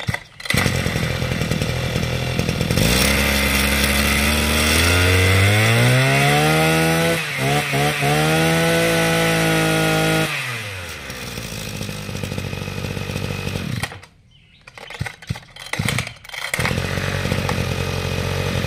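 Small two-stroke brush-cutter engine, a 26 cc Maruyama KC26A, catching at once on a pull of the recoil starter and running. About three seconds in it is revved up in a rising whine and held at high speed with a couple of brief dips, drops back to idle about ten seconds in, and is shut off about fourteen seconds in, followed by a few clicks of handling.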